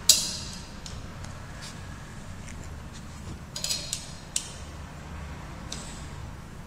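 Light metallic clinks and taps of a steel screwdriver shaft touching the metal parts of a saw-blade grinder. There is a sharp one just after the start, a quick cluster about three and a half seconds in, and another just after, over a low steady hum.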